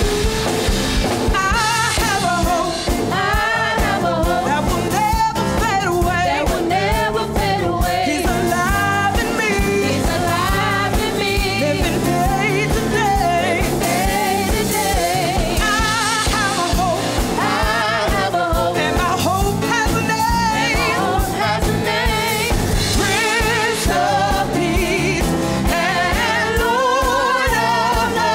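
Live gospel praise-and-worship music: singers with wavering, sustained lines over keyboard, bass guitar and drum kit.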